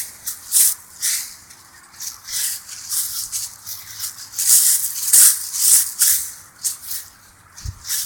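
Irregular rustling and crunching noises, short scratchy bursts coming about one or two a second, loudest about halfway through.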